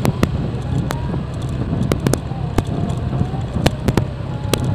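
Motorcycle engine running steadily while riding, with irregular sharp pops and cracks scattered over it.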